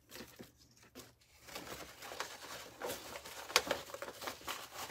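Tear-away embroidery stabilizer being torn and pulled off an embroidered piece by hand: papery crinkling and tearing that begins after a quiet first second and a half, with one sharp snap about three and a half seconds in.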